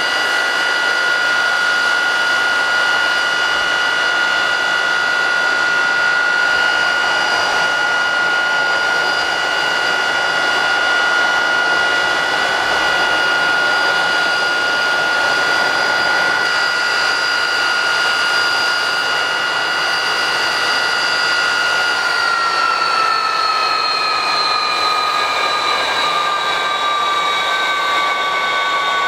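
Aircraft jet engine mounted on a railway flat-bed truck, running with a loud rush of exhaust and a steady high whine. About twenty-two seconds in the whine begins to fall in pitch as the engine slows a little.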